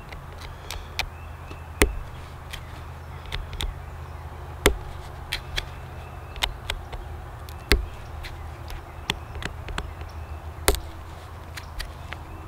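Pressure flaking a small flint arrowhead with an antler flaker, the point held in a leather pad: sharp clicks as small flakes snap off the edge. A loud click comes about every three seconds, with fainter ticks in between.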